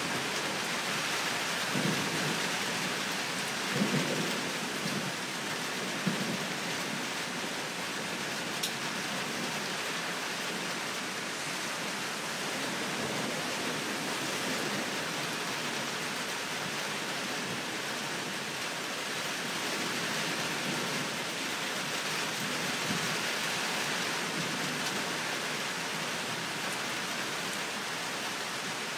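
Steady rain falling, with a few low rumbles of thunder in the first six seconds.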